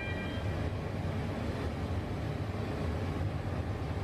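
Steady low rumble of foundry machinery at an aluminium melting furnace while molten metal is tapped. A high steady whine stops within the first half second.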